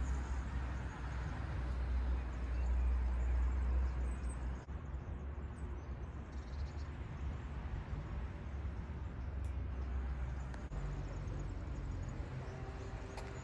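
Outdoor ambience dominated by a low, uneven rumble of wind buffeting the phone's microphone, over a steady hiss.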